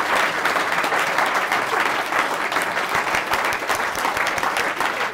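A roomful of people applauding steadily: dense, continuous clapping.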